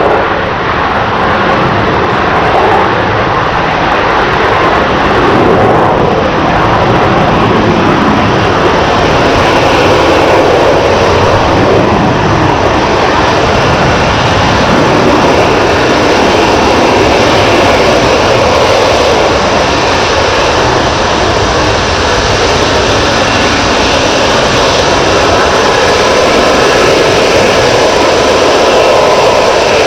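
Jet engines of an F-35B Lightning II and an EAV-8B Harrier II flying a display together: a loud, continuous jet roar.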